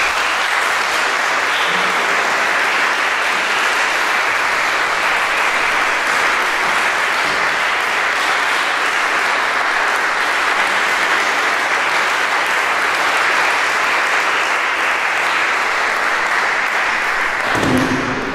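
Audience applauding steadily, a dense even clapping that dies away shortly before the end.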